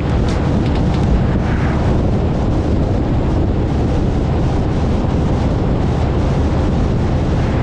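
Wind blasting the microphone over a steady low vehicle rumble, as on a moving motorcycle or in a helicopter in flight.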